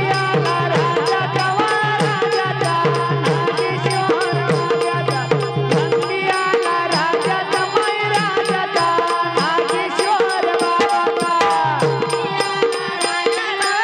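Marathi bhajan music: a sustained melody over drums and small cymbals keeping a fast, steady beat.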